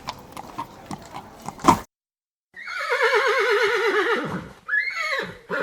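Horse hooves clip-clopping for nearly two seconds, then after a brief pause a horse's long whinny with a quavering, falling pitch, followed by a shorter second call near the end.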